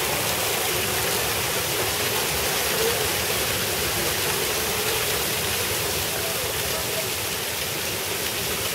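Fountain water jets spraying and splashing down into the pool: a steady, even rushing of falling water.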